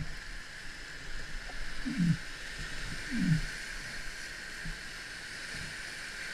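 Whitewater rapids rushing as a steady hiss around a paddle raft. Three short, low sounds that drop in pitch come through: one right at the start, one about two seconds in and one about three seconds in.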